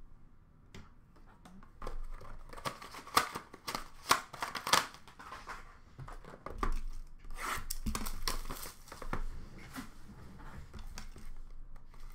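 Trading card packaging being handled and opened: plastic wrappers and card stock rustling and crinkling, with a few sharp snaps and clicks. The sound starts about two seconds in and comes in irregular bursts.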